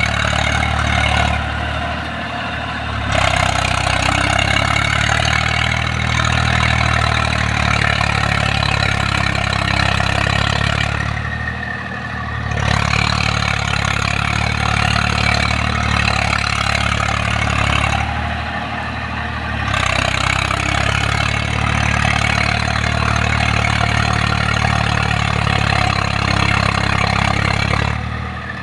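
Eicher tractor's diesel engine running steadily under load as it works through deep paddy-field mud, its note easing off briefly several times.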